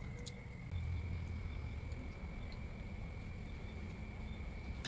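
Insects chirring outdoors in one steady, unbroken high note, over a faint low rumble, with a few faint clicks in the first second.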